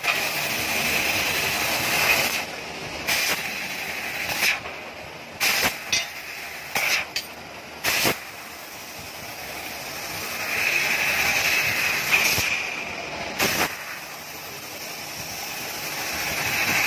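Fiber laser cutting machine at work: a steady hiss of gas rushing from the cutting head that swells and fades, broken by a series of short, sharp bursts.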